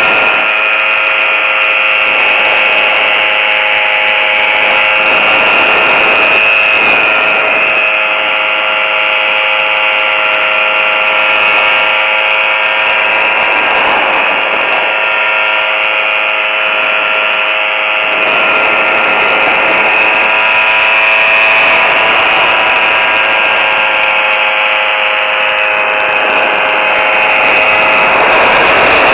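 Ultralight hang-glider trike's engine running steadily in flight, a high-pitched drone, with wind rushing over the microphone.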